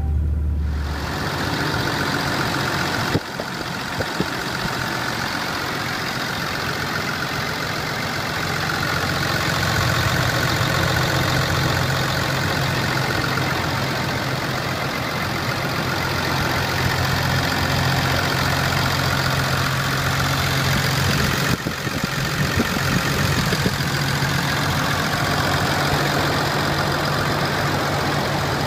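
2010 Ram 2500's 6.7-liter Cummins inline-six turbo diesel idling steadily, heard close up from the open engine bay.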